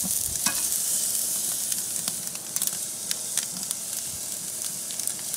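Thick strip loin steak searing on the grate of a charcoal kamado grill fired to around 650 degrees: a steady sizzle with scattered crackles and pops.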